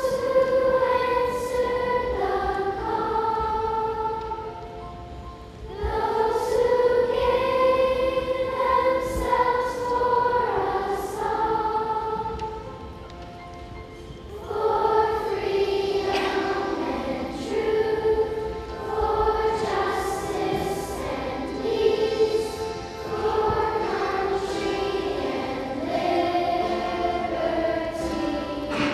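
Fifth-grade children's chorus singing together in long held phrases, with short breaks between phrases about five and fourteen seconds in.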